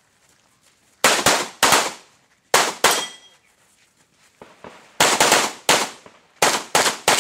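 Shotgun firing about ten loud shots in quick pairs and short strings, roughly half a second apart, with pauses of a second or two between strings as the shooter moves and reloads during a timed practical-shooting stage.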